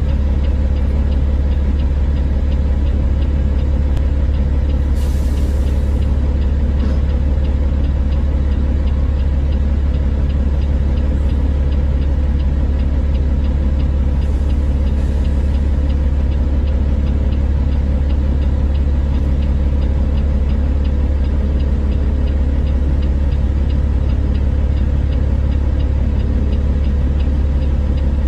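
Heavy diesel engines of a dump truck and excavators running steadily, a deep rumble with a fast, even diesel clatter. A short air hiss comes about five seconds in.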